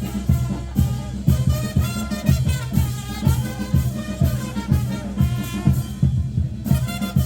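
Upbeat music with a steady, driving beat and a melody over it; the upper parts drop out briefly near the end.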